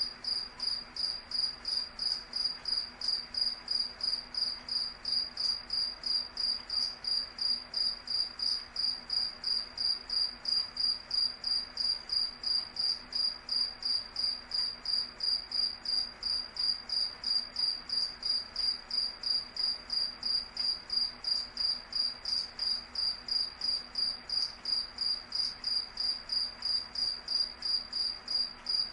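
Cricket chirping: one high-pitched chirp repeated at a steady, even rate of about three a second.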